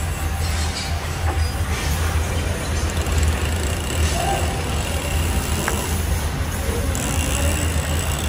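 Steady low mechanical rumble with a constant hum, a few faint light clicks over it.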